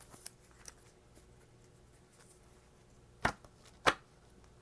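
A deck of thin-stock tarot cards being shuffled and handled: a few soft clicks, then two sharp taps about half a second apart around three seconds in.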